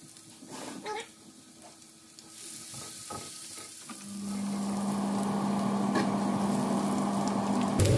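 Pounded garlic and pepper sizzling in hot oil in a non-stick wok, stirred with a silicone spatula, the sizzle growing from about two seconds in. About halfway through, a louder steady hum with a rushing noise sets in and keeps going.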